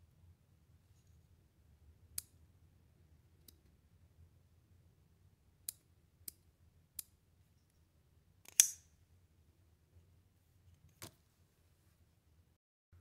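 A few light metallic clicks from handling a Boker Kalashnikov 74 automatic knife, then, about two-thirds of the way in, one sharp loud snap as the spring-driven blade fires open from the side button and locks.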